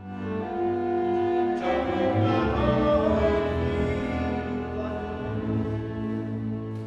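Kalotaszeg folk string trio: a violin plays a slow melody in long held notes over bowed chords from the brác and a sustained double bass line. The sound fills out about one and a half seconds in.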